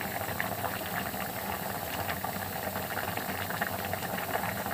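Goat head pieces boiling hard in their broth in an open pressure cooker, a steady bubbling with many small pops and crackles.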